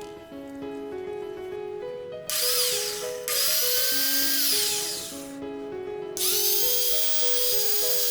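Old Maktec hand angle grinder switched on and off several times, test-run after its bearings were replaced: a brief blip about two seconds in, then a run that spins up with a rising whine and coasts down, then another run that spins up about six seconds in and is still going at the end. Background music with a melody plays throughout.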